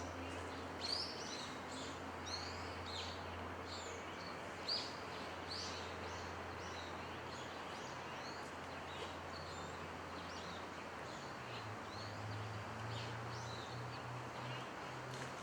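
Small birds chirping in short, quick calls, busiest in the first half, over a steady low hum.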